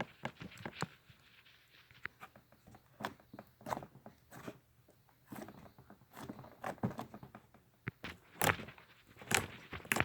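Freshly activated fluffy slime being stretched and kneaded by hand: scattered sticky clicks, crackles and tearing squelches, with a few louder ones near the end.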